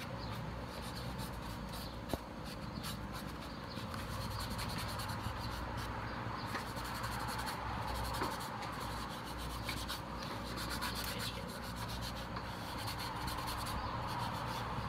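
Cloth rubbing over the plastic shell of a clone trooper helmet, wiping at the weathering wash. It is a continuous scratchy rubbing with small handling clicks scattered through it.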